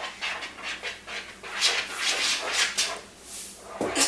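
Spoon stirring a bowl of shaving-cream-and-glue slime mixture: quick, uneven, wet swishing strokes, several a second. A short sound falling in pitch comes near the end.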